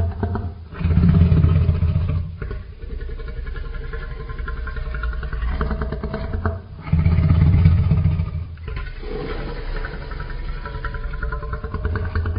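Made-up kaiju monster sound effect: a deep, engine-like growl that swells loud twice, about a second in and again about seven seconds in, with a layered mechanical hum between.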